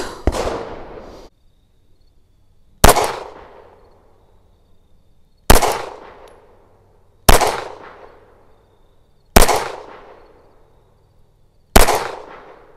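A 9mm FN 509 CC Edge pistol fired in slow single shots, six in all, about two seconds apart, each trailing off in echo.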